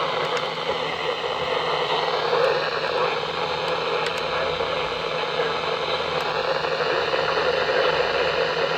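Steady hiss and static from a weather radio receiver between broadcast messages, with a few faint clicks.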